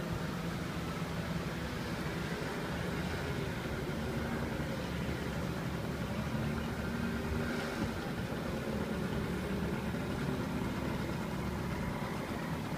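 Small scooter engine, the 5.8 hp engine of a 1985 BOXN scooter, running steadily at low speed as it is ridden.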